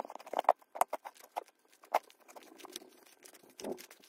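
Shaving-cream slime being stirred and squeezed by hand as activator is worked in: an irregular run of sticky clicks, crackles and squelches.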